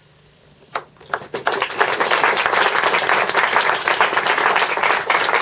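Audience applause: a single clap just under a second in, a few scattered claps, then dense clapping from many hands that fills in by about two seconds in and carries on steadily.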